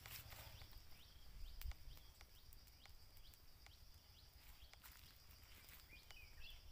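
Near silence outdoors: faint scattered ticks and crackles from wood embers under a banana-leaf parcel grilling in a wire basket. A bird gives a brief wavering call about six seconds in.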